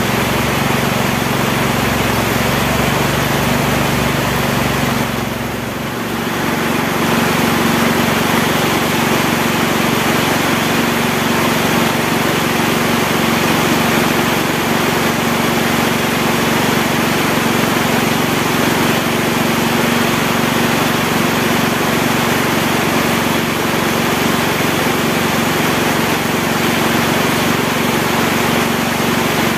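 Heavy rain falling steadily in the forest at night, with a steady low hum underneath. The sound dips briefly about five seconds in.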